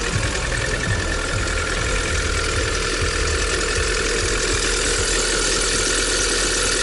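Lada Granta's four-cylinder petrol engine idling just after a cold start, very noisy, with an unpleasant knocking. The knock is piston slap on the cold engine, which the owner had first taken for the hydraulic lifters.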